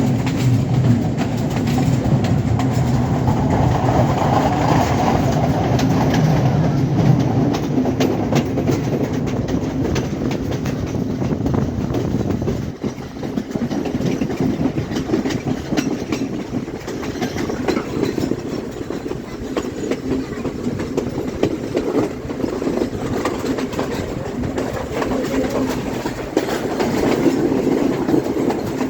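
Passenger express train running along the track: a steady rumble with the clickety-clack of wheels over rail joints, dipping briefly about halfway through.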